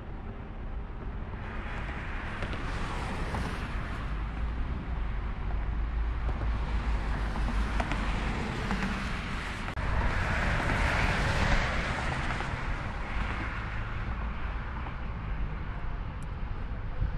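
Jet airliner's engines on departure, a broad roar with deep rumble that swells from a couple of seconds in, is loudest around ten to twelve seconds in, then slowly fades.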